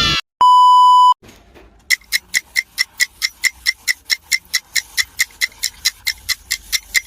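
A loud, steady electronic beep lasting under a second, then, after a short pause, a clock ticking sound effect with rapid, even ticks at about five a second.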